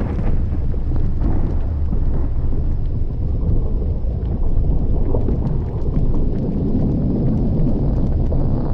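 Erupting volcano giving a steady, loud low rumble, with scattered faint crackles over it.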